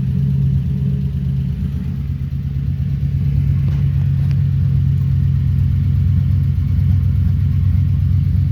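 A 6.0 L V8 engine running steadily just after being restarted, misfiring because of a failed active fuel management lifter.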